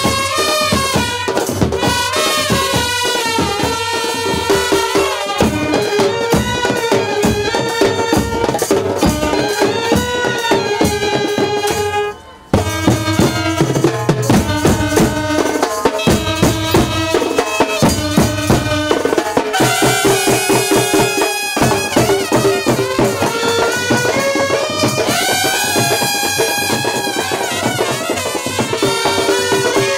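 Instrumental break of a Marathi folk song: a melody instrument playing over quick, busy drum beats, with a brief drop-out about twelve seconds in.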